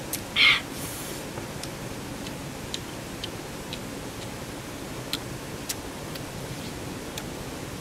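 A person eating eel soup: one short loud slurp about half a second in, then scattered small sharp mouth clicks of chewing and lip-smacking over a steady background hiss.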